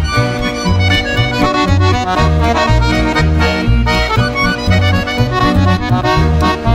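Instrumental folk tune played by a trio of accordion, violin and double bass, with the accordion in front over a bass line of short, changing low notes.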